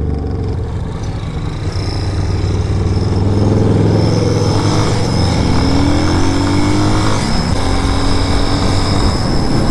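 BSR Raven 250's 229cc air-cooled single-cylinder engine pulling away through a junction. The revs climb for several seconds, drop at an upshift about seven seconds in, then run steadily.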